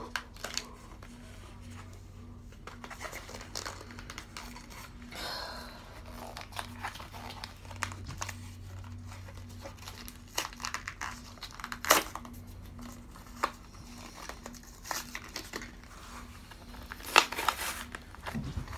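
Plastic blister pack and cardboard of a computer mouse's packaging being torn open by hand: scattered crinkling and tearing with a few sharp cracks, one about twelve seconds in and a louder cluster near the end.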